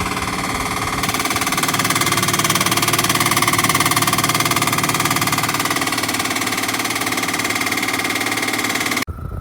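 BLACK+DECKER portable air conditioner running: a steady whir of fan and air with a steady hum over it. It cuts off abruptly near the end.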